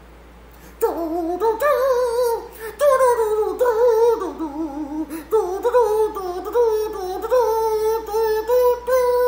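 A person humming a wandering, wavering tune without words, starting about a second in.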